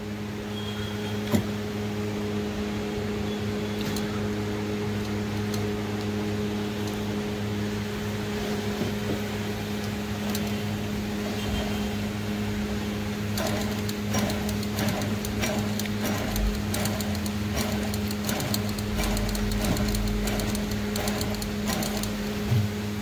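Electric tailoring sewing machine running, with a steady motor hum throughout. From about halfway in, rapid even clicking of the needle and feed comes in as it stitches a test seam through cloth.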